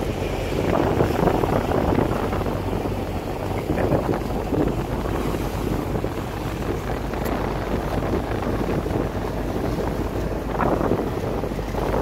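Fishing boat's engine running steadily under way, a constant low hum, with wind buffeting the microphone.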